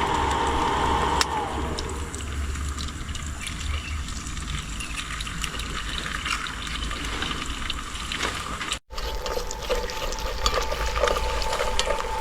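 Eggs frying in a hot pan with chilli, a steady sizzle with many small pops. A steady high hum sits under it for the first two seconds and again after a brief break about three quarters of the way through.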